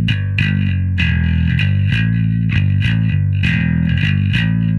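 Electric bass played through the GK Amplification 3 Pro Gallien-Krueger amp-simulator plugin on its Crunchy Drive preset: a crisp, compressed tone on the edge of distortion, breaking up more or less with how hard the strings are struck. It plays a steady rhythmic line of sharply attacked notes, a few per second.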